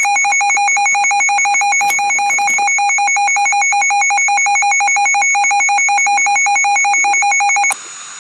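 Emergency Alert System attention signal: a loud, continuous, harsh alert tone announcing a severe thunderstorm warning. It cuts off abruptly near the end, leaving faint radio hiss.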